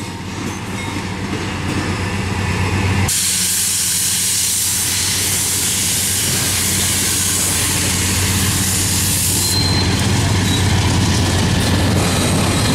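A BNSF GE Dash 9-44CW diesel-electric locomotive passing close by under power, its engine running with a steady low drone. This blends into the loud, continuous rushing noise of the train rolling past, which steps up sharply about three seconds in.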